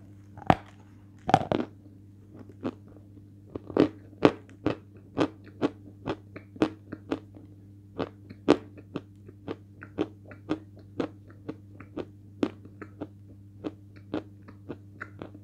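Close crunching of a chunk of 'Belaya Gora' edible chalk being bitten and chewed: two loud bites in the first second and a half, then steady crunches about two a second. The chalk is still somewhat damp.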